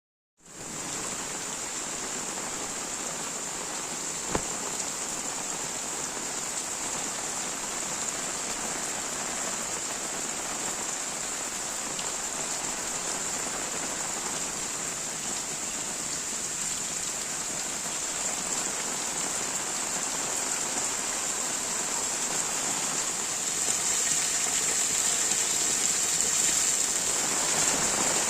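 Heavy rain falling steadily, a dense hiss of drops that grows slightly louder toward the end. There is one sharp tap about four seconds in.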